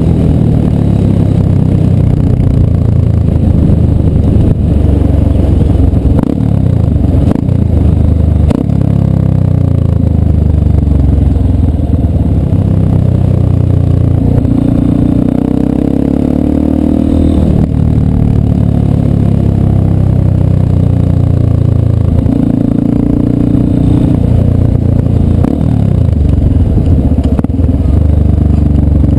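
Yamaha Ténéré 250's single-cylinder engine running loudly through an aftermarket Coyote exhaust, its note rising and falling several times as the revs change.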